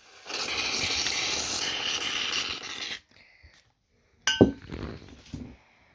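A loud, steady hiss for about three seconds that cuts off abruptly. Then a sharp, ringing clink of a metal spoon against a ceramic plate, followed by a couple of softer knocks.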